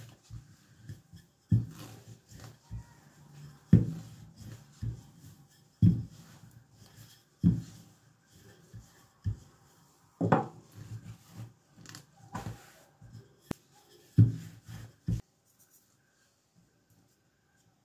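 Wooden rolling pin rolling out dough on a floured work surface: a knock about every two seconds as each stroke of the pin comes down, with softer knocks in between. The knocking stops near the end.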